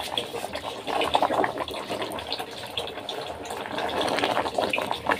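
Hot water sloshing and bubbling in an aluminium pot as it is stirred with metal tongs, with light clinks of the tongs.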